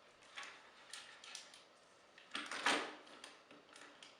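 Plastic parts and joints of a Transformers Sixshot figure clicking and rattling as its legs are repositioned: a few light clicks, then a louder half-second clatter about two and a half seconds in.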